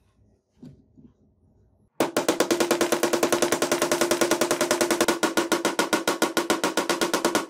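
Rapid, evenly spaced metal hammer taps, about a dozen a second, starting about two seconds in: a brass diamond inlay being hammered down into a wooden sword-handle block.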